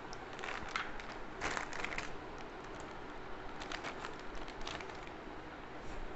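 Crinkling of a plastic flour packet being handled, in three short spells of crackly rustling.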